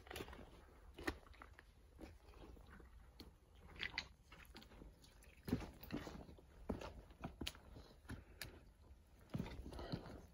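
Footsteps crunching irregularly along a hiking trail that runs with water, with scattered sharp scuffs and knocks underfoot.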